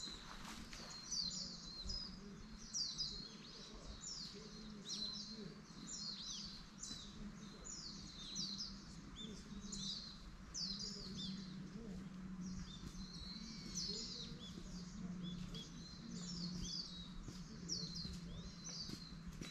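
Songbirds chirping: short, high, falling notes repeated a little more than once a second, over a faint low steady hum.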